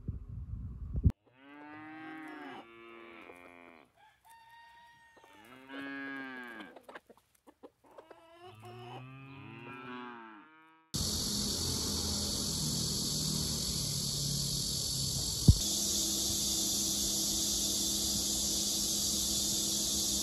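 A Siamese cat meowing: about four drawn-out, low, wavering calls with pauses between them. Then a steady high insect chirring takes over, with a single sharp click partway through.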